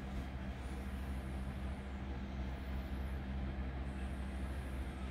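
Steady low mechanical hum, a few even low tones held without change.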